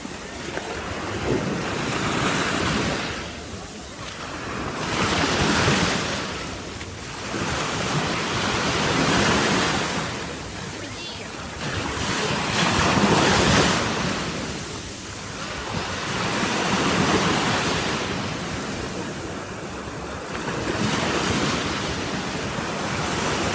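Sea waves breaking and washing up on the shore, swelling and falling away every few seconds, with wind buffeting the microphone.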